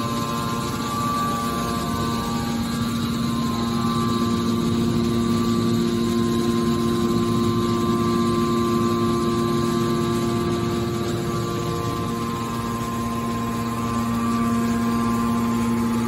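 Hydraulic scrap metal baler's power unit running: electric motor and hydraulic pump giving a steady hum with a higher whine over it.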